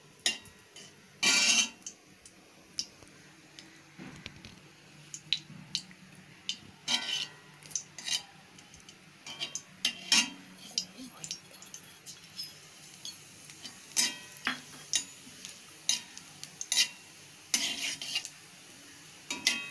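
Metal spatula scraping and knocking against an aluminium kadai of hot oil, with clinks from a small steel bowl, in irregular scattered strikes. The longest clatter comes about a second in.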